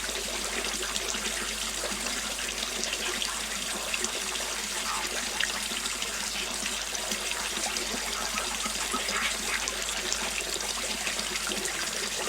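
Small waterfall splashing and trickling steadily.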